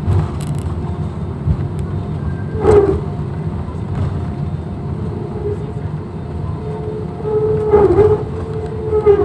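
Cabin noise of an Airbus airliner rolling out on the runway after landing: a steady low rumble with a faint steady hum. Brief louder wavering swells come about three seconds in and again around eight seconds in.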